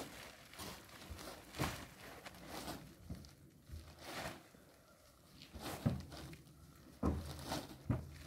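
Chopped corn silage being forked off a truck bed into held-open woven plastic sacks: scattered rustles and soft thumps as each forkful drops in, several coming close together near the end.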